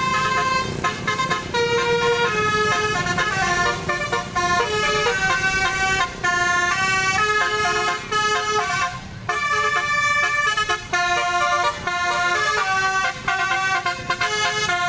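Telolet musical bus horn, a Basuri-type set of tuned electric air horns, playing a melody of short notes, several tones sounding together, with a few brief pauses.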